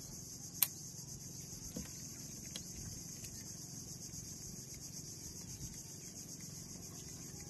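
Steady, high-pitched insect chorus, with one sharp click about half a second in.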